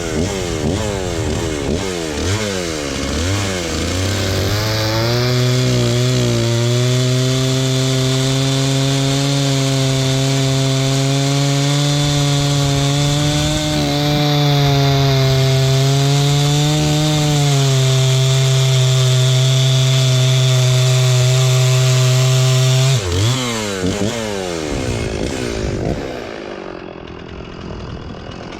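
Stihl chainsaw revved a few times, then held at high revs for a long, steady cut through wood. Near the end it drops back to idle.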